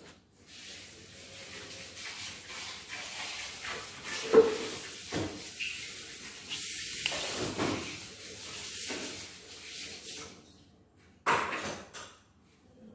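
Cookie dough being scooped out of a stainless steel mixing bowl and dropped onto a parchment-lined baking tray: rough scraping of the scoop against the bowl, with a sharp knock about four seconds in and another near the end.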